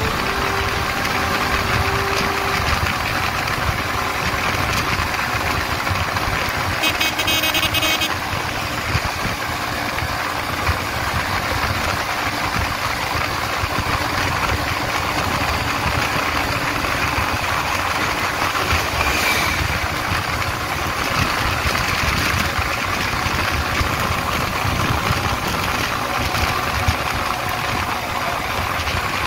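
Small motorcycle riding at speed on the open road: engine running under a steady rush of wind buffeting the microphone. A short high beep sounds about seven seconds in.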